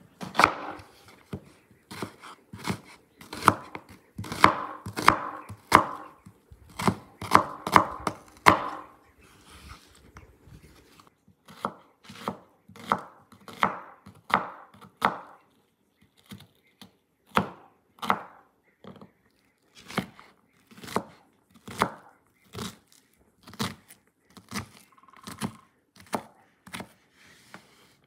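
Kitchen knife slicing through a white onion onto a wooden cutting board: a long series of crisp chops, roughly one to two a second, with a brief pause partway through.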